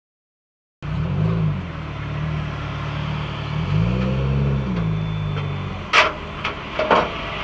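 A car's engine heard from inside the cabin, starting abruptly about a second in and rising and falling in pitch twice as the car accelerates and eases off. A few short sharp knocks come near the end.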